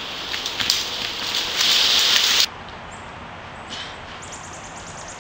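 A loud, even hiss with a few sharp clicks that cuts off abruptly about two and a half seconds in at an edit. A quieter outdoor background follows, with a brief run of faint high ticks near the end.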